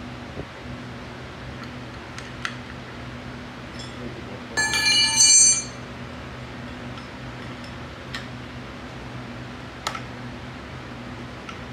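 Loud metallic clatter with ringing tones about five seconds in, from metal hand tools being handled, set against a steady low hum. A few light clicks of tools come before and after.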